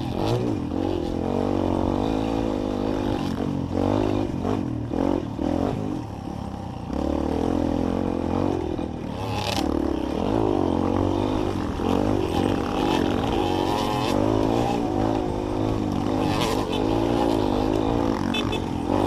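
Trail motorcycle engine running, its pitch rising and falling with the throttle, with scattered clattering knocks.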